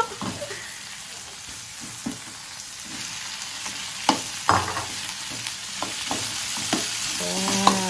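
Shimeji mushroom and meatball stir-fry sizzling in a pan, with a spatula knocking and scraping against the pan every second or so as it is stirred.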